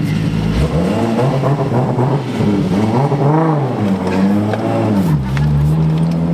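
Mk4 Toyota Supra's 2JZ inline-six engine revved several times, its pitch rising and falling, before settling to a steady note.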